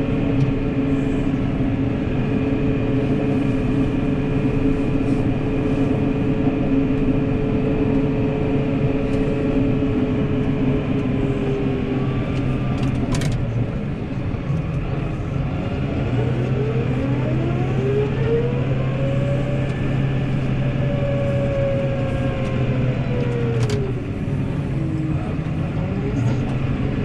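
New Holland tractor's engine running under load while it pushes a front snowplow. It slows about halfway through, revs back up and holds, then eases off near the end. Two sharp clicks are heard, one about halfway through and one near the end.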